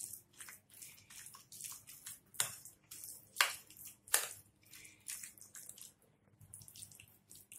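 A metal spoon stirring thick curd with grated cucumber, chopped onion and herbs in a glass bowl: irregular soft wet squelches and scrapes, with a few sharper clicks of the spoon against the glass.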